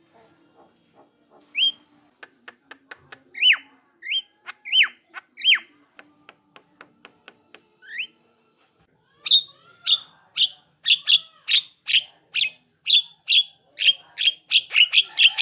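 Javan myna (jalak kebo) calling: loud, short rising whistled notes a little under a second apart, with faint quick clicks between them. About halfway in, a faster run of sharp calls starts at roughly two a second and quickens near the end.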